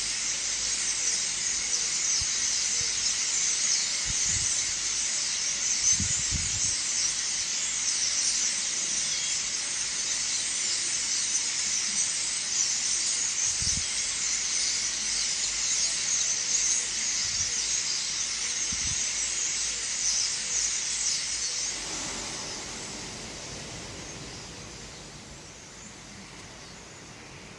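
Many small birds chirping and chattering at once in a dense, high-pitched din, fading away from about 22 seconds in.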